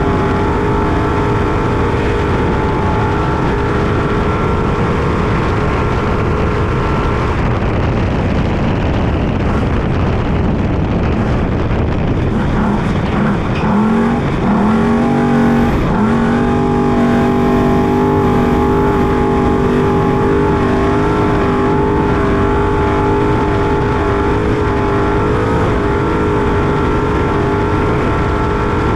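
Trophy truck engine running hard under race load, heard from inside the cab over a dense, constant rumble. About a third of the way in the engine note breaks up into a rough, noisy stretch, then rises in pitch in a few quick steps and holds a steady higher note.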